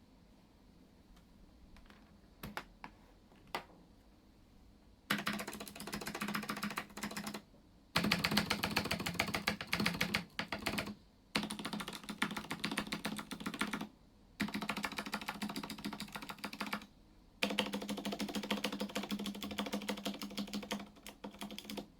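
Clicky Cherry MX Blue switches on a Ducky One 2 Mini mechanical keyboard. A few single key presses, then rapid repeated hammering on the stabilized keys, such as the spacebar and shift, in five bursts of a few seconds each with short pauses between them.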